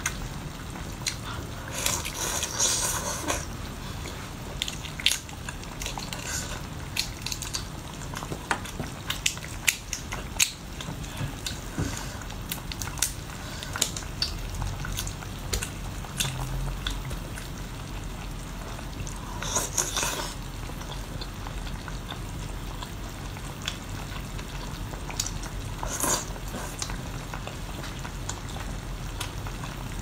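Close-miked eating sounds: a cooked tiger prawn's shell crackling and clicking as it is bitten and peeled apart by hand, with chewing. Wet slurping or sucking comes a few times, loudest about two seconds in and again near twenty and twenty-six seconds.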